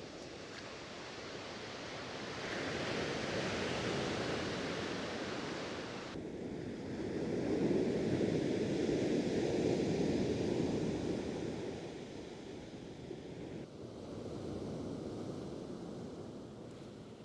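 Sea surf breaking on the shingle of Chesil Beach, the wash swelling and falling away in several waves.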